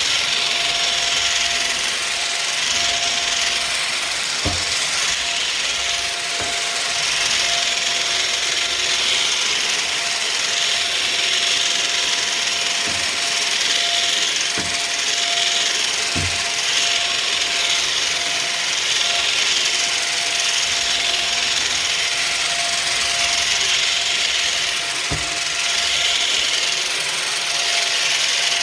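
Vacuum cleaner running steadily with a constant motor whine and a pulsing rush of air, sucking up crunchy debris that clicks through the head now and then.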